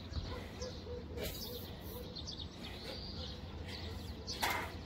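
Small birds chirping over a steady low hum, with a short burst of noise a little over a second in and a louder one near the end.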